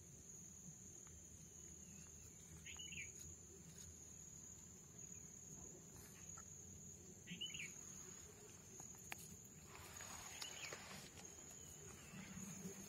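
Faint outdoor ambience: insects keep up a steady high-pitched trill, with a short chirp twice and a brief rustle about ten seconds in.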